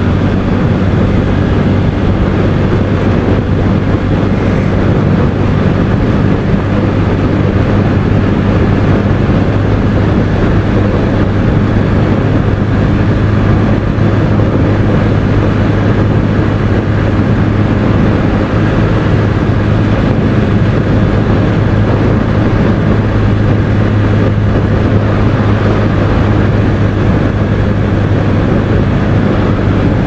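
Bajaj Pulsar N160's single-cylinder engine running at a steady highway cruise, an even hum that holds without revving up or down, heard from the rider's position.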